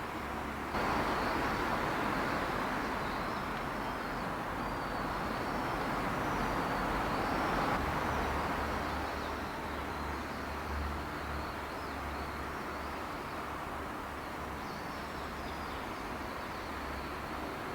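Freight train hauled by an EF81 electric locomotive, heard running at a distance: a steady rumble that jumps up suddenly about a second in, swells, then eases off. A faint high warble sits over it.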